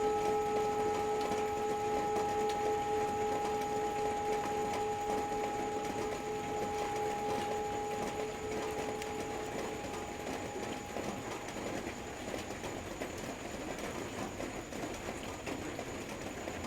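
A Tibetan singing bowl ringing out, its low tone and a few higher overtones slowly dying away and gone by about ten seconds in. Steady heavy rain pattering throughout.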